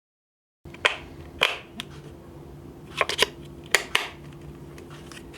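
Sharp plastic clicks and snaps, about seven in all and some in quick pairs, as AA batteries are pressed into a small plastic alarm clock's battery compartment. A faint steady hum lies underneath.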